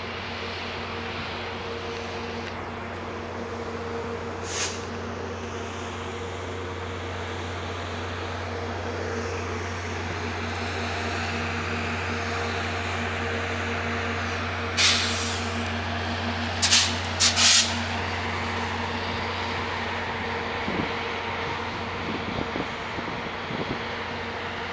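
VIA Rail passenger train's diesel locomotive running with a steady drone. Short sharp hisses of air from the brakes come once about five seconds in and then in a group of three to four around fifteen to seventeen seconds. A few faint knocks follow near the end.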